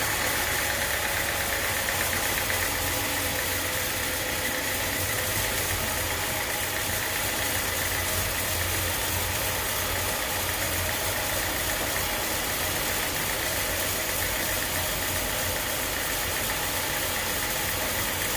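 Engine-driven sawmill running steadily: a constant engine hum with a steady high whine over it.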